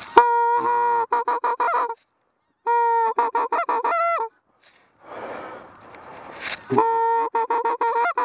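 Hand-blown goose call imitating greylag geese: three series of loud honks, each a longer held note followed by a quick run of short honks. A soft rustle and a single knock come between the second and third series.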